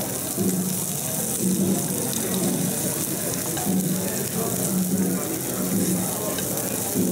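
Cubes of wagyu beef sizzling steadily in a hot nonstick frying pan while they are turned over with metal spoons.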